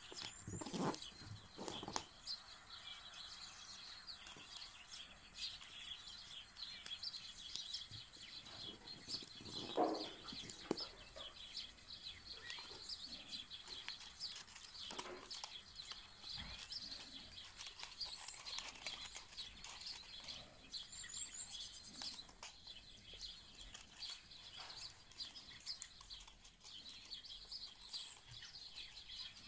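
Small birds chirping continuously in the background. Now and then stiff paper rustles and creases as it is folded, loudest about a second in and again about a third of the way through.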